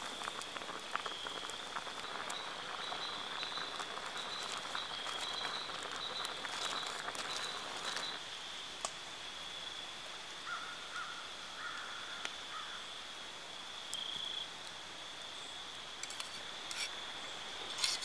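Hot water in a metal camp pot hissing and crackling over campfire coals for about the first eight seconds, then dying away. Under it a steady high-pitched insect trill runs throughout, and a few light metal clinks of a spoon in the cup come near the end.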